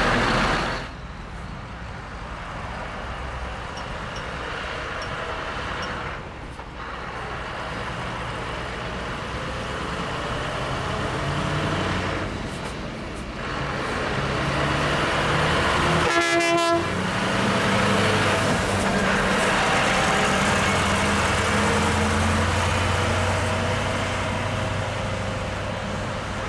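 Scania V8 truck driving slowly past, its engine sound building as it approaches and fading as it pulls away. A short horn blast sounds just past the middle.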